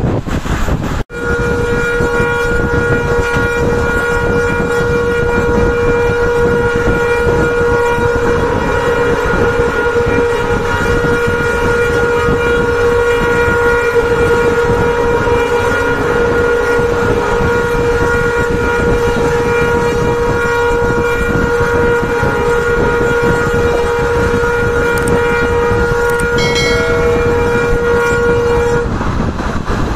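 Locomotive horn held in one long unbroken blast of almost half a minute, over the rumble and wind of the moving train. It starts abruptly about a second in, and a brief extra higher tone joins near the end before it stops.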